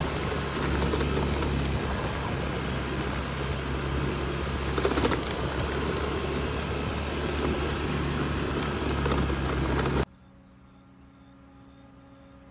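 A motor running steadily, with a low hum under loud rushing noise, cutting off abruptly about ten seconds in.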